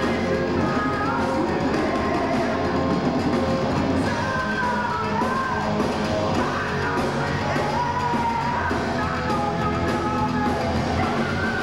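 Heavy metal band playing live: a male singer's rock vocals with long held notes over electric guitar and a drum kit.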